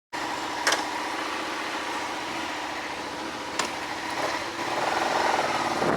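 Motorcycle engine running steadily, with two sharp clicks, one just under a second in and one about three and a half seconds in.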